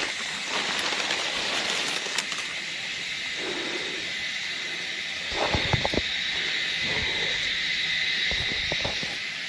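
A steady high-pitched hiss with a held tone running through it, with a few brief rustles and knocks about five and a half seconds in and again near the end.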